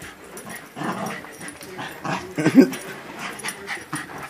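A corgi puppy and a Lhasa Apso play-fighting, making short dog vocal sounds; the loudest call comes a little past halfway.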